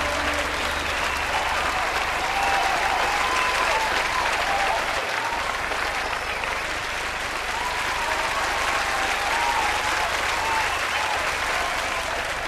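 Large audience applauding and cheering, with shouting voices above the clapping.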